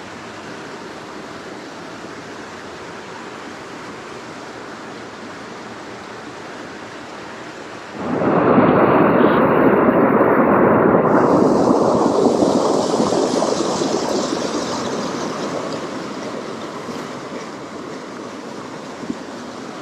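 Small stream running steadily; about eight seconds in, the rush of water becomes suddenly much louder, stays loud for a few seconds, then fades gradually.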